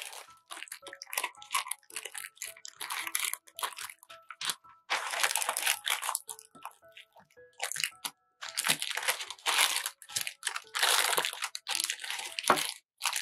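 Parchment baking paper crinkling and crumpling in irregular bursts as it is pressed and folded into small round cake tins.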